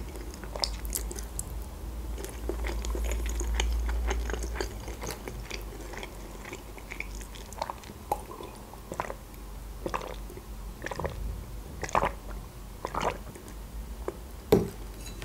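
Close-miked chewing of soft boiled pelmeni and black olives, with wet mouth clicks. About halfway through come swallows of juice from a glass, followed by a string of sharp mouth clicks.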